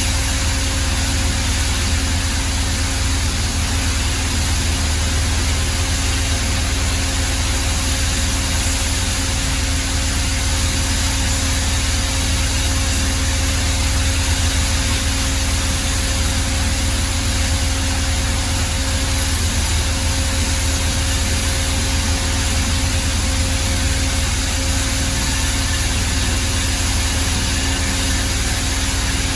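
Pedrazzoli Bend Master 75 CNC tube bender powered up and standing at rest, its power unit giving a constant hum: a low drone with a steady mid-pitched tone and an even hiss over it.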